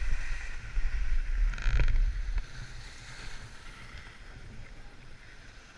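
Skis scraping and hissing over packed piste snow, with wind buffeting the camera microphone and a louder skidding scrape about a second and a half in. After about two and a half seconds the rumble drops away and only a faint hiss remains as the skier comes to a stop.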